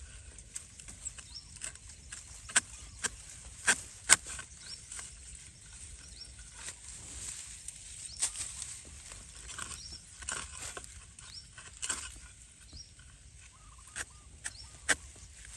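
A long bamboo-handled digging blade chopping into soil and roots at the base of a wild bamboo shoot to cut it free: about a dozen sharp chops, irregularly spaced a second or two apart, the loudest about four seconds in.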